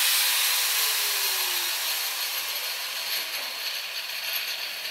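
Chop saw cutting steel stock for an engine-mount bracket: a high, hissing cut that fades steadily as the blade winds down, with a falling whine over the first couple of seconds.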